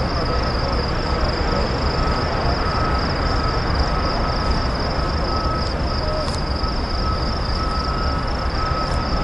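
Train rolling past close by: a steady, loud rumble and rail noise, with a steady high-pitched whine above it.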